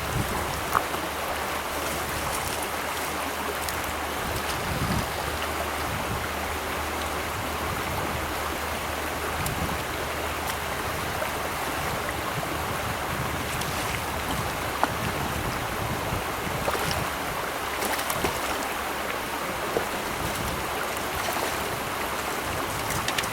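Trout stream running steadily, an even rush of water, with a few faint clicks here and there.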